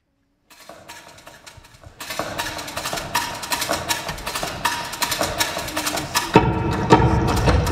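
Percussion music of sharp wooden clicks and knocks. It fades in about half a second in, gets louder about two seconds in, and a deep drum layer joins near the end.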